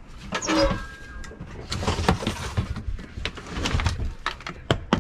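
Scattered knocks, clicks and rustling of medical gear being handled in a fire engine's cab compartment, as an oxygen bottle is put away and a first aid kit is opened.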